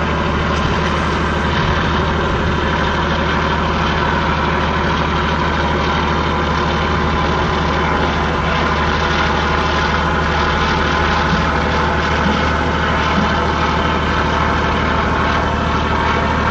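Heavy diesel engine of a moored ship running steadily, a loud low drone with a constant hum that does not change.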